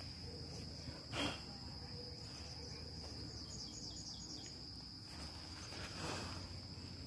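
A steady high-pitched insect drone, with a couple of brief soft rustles about a second in and near the end.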